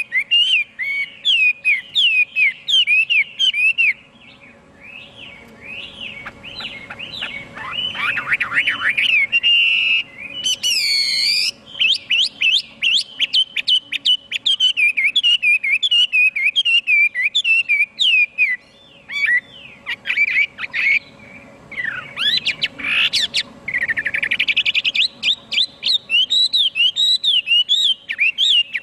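Chinese hwamei (họa mi) singing a long, varied song of rapid repeated notes and slurred whistled phrases, with a couple of short pauses.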